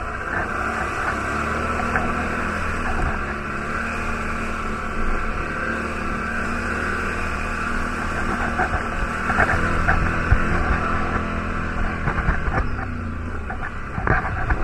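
ATV (quad bike) engine running steadily as it drives along a muddy, rutted track, with a few short knocks around ten seconds in and near the end.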